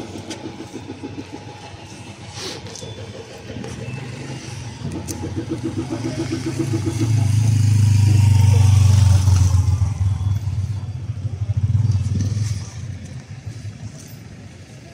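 Road traffic going by: vehicle engines passing close, one growing louder to a peak about seven to ten seconds in and fading, with another brief swell near twelve seconds.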